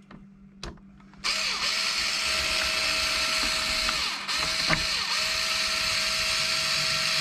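A couple of light clicks, then about a second in a cordless electric screwdriver starts and runs steadily. Its motor whine dips briefly a few times as it drives screws.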